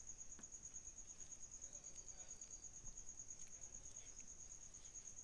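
A cricket's steady, rapidly pulsing high trill, faint, with a few soft clicks and scrapes of a spoon stirring thick haleem in a pot.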